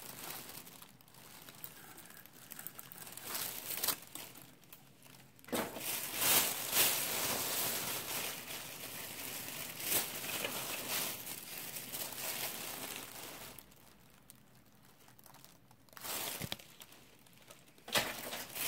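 Thin plastic shopping bags rustling and crinkling as items are handled, in irregular bursts with a quieter stretch about two-thirds of the way through.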